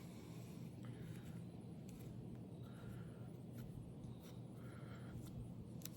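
Quiet background with a steady low hum and a few faint, scattered clicks; no shots are fired.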